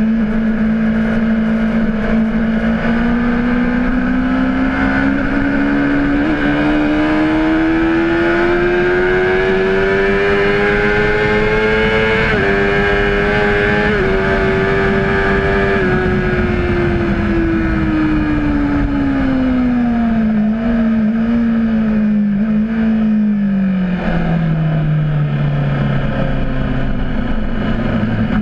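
Honda CBR600RR inline-four engine at speed: its note climbs steadily for about twelve seconds, holds briefly, then falls away with a few short steps to a low note near the end as the bike slows. A steady rushing noise runs underneath.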